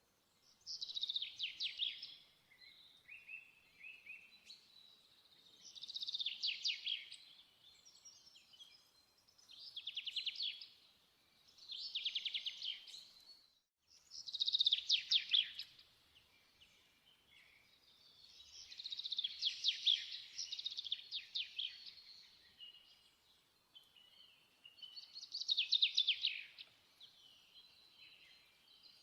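A small songbird singing short, rapid trilled phrases every few seconds, high-pitched, over a quiet background.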